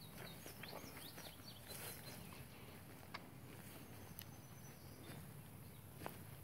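Faint quiet pasture ambience: a few quick high bird chirps in the first second or so, a thin high insect-like tone later on, and a couple of soft clicks.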